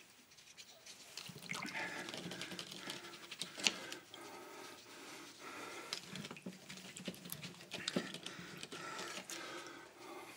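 A man's heavy panting breath, coming in stretches with a hoarse voiced edge, and a few small clicks and rustles.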